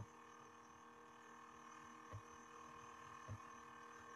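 Near silence: a steady faint electrical hum with three faint mouse clicks.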